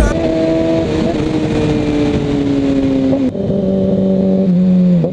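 Kawasaki Ninja ZX-6R's inline-four engine running under way, its pitch easing slowly down, then dropping to a lower note about three seconds in as the bike shifts up a gear, and holding steady after. Wind rush runs under the engine.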